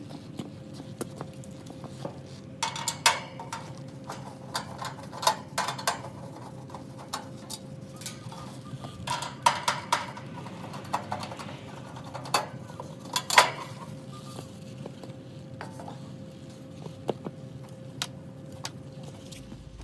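Scattered sharp metallic clicks and clinks of hand tools and parts being handled on a metal air-conditioner housing, over a steady low hum with a faint constant tone.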